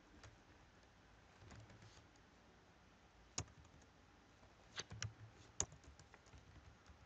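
Faint, scattered clicks of computer keys over quiet room tone, with a few sharper presses from about halfway in.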